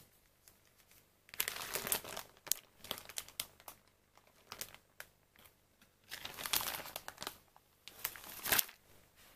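Thin clear plastic packaging film crinkling in irregular bursts as hands lift the bag and take out the Leberkäse slices, with three louder stretches of crackling.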